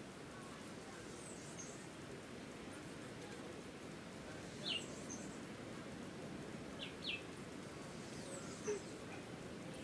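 Steady outdoor background noise with a few short, high bird chirps: one about five seconds in and two close together around seven seconds.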